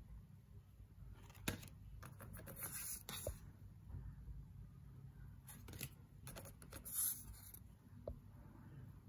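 Angel Wisdom Tarot cards being handled one at a time: several short papery slides and rustles as cards are drawn off the deck and laid aside, with a few light taps.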